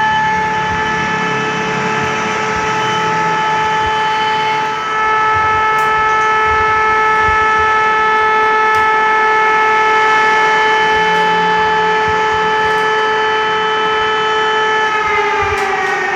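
An alarm siren sounding one steady pitch for about fifteen seconds, then sliding down in pitch near the end.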